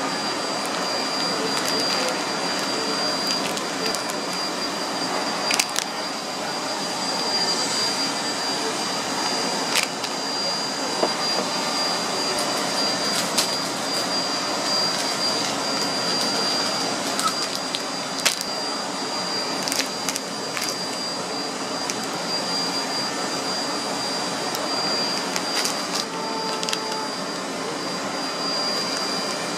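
Steady machine noise, an even hum and hiss with a constant high whine, with a few short sharp crinkles or clicks scattered through it.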